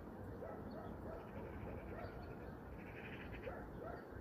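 Faint animal calls, short cries repeated every second or so, over a low steady background.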